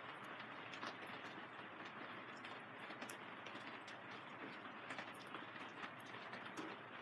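Steady rain falling on a plastic-film greenhouse, a constant hiss with many irregular sharp taps of single drops striking the plastic sheeting.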